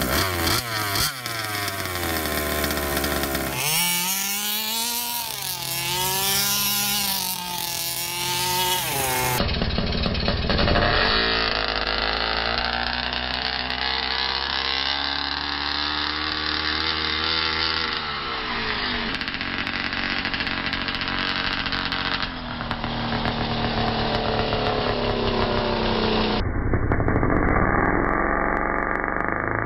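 The RCMK 30.5 cc two-stroke engine of a 1/5-scale gas RC buggy running hard as it drives. Its pitch rises and falls over and over as the throttle is blipped and released, with a few abrupt jumps where clips are joined.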